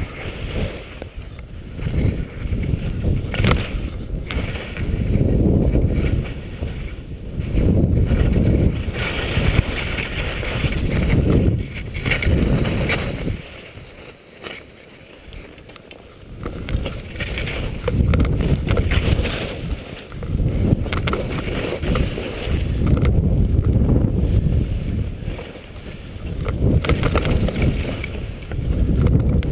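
Wind rushing over the microphone in surges a few seconds apart, with a hiss of skis sliding through snow, as on a ski run.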